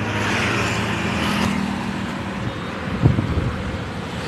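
Road traffic: motorbike and scooter engines running as two-wheelers ride past, over steady road hiss, with a brief low thump about three seconds in.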